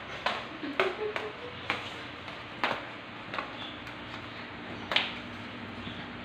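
A puppy playing with a rubber toy on a tiled floor: a scattering of irregular knocks and slaps as the toy and paws hit the tiles, about seven in all, the loudest about five seconds in.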